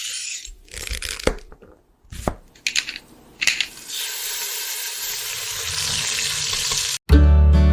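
Cooking sounds: a few sharp knocks and short scrapes of utensils, then a steady sizzle of food frying in a pan for about three seconds. Near the end the sizzle cuts off and guitar music begins.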